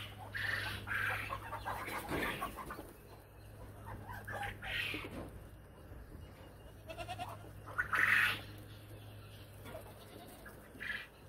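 Goats bleating and chickens clucking, with several short calls spaced through and the loudest about eight seconds in, over a steady low hum.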